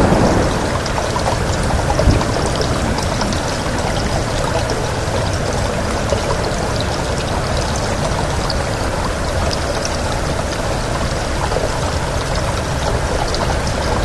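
Steady rain with wind: an even, constant rushing hiss with scattered small drop ticks on top.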